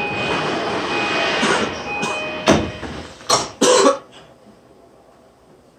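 Passenger doors of a Tokyu 3020 series commuter train shutting at a station stop. Busy platform noise with a steady high tone comes first, then several heavy thumps between about two and a half and four seconds in as the doors close, after which the sound drops to a quiet cabin hum.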